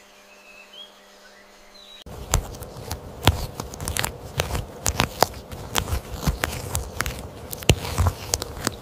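Leaves being chewed by a mass of caterpillars: a dense, irregular crackling and crunching of sharp snaps that starts abruptly about two seconds in. Before it there are only a few faint chirps over a low hum.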